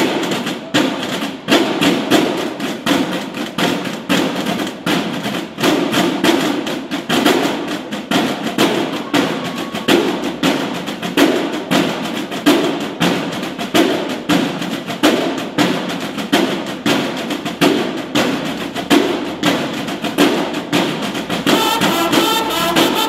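Field drums of a banda de guerra (drum and bugle corps) playing a fast, even drum cadence together. Near the end, bugles come in over the drums.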